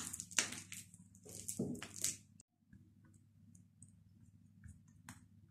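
A metal fork mashing and stirring soft margarine and butter on a ceramic plate: a quick run of scraping, squishing strokes for about two and a half seconds. After that it goes quiet, apart from a few faint ticks.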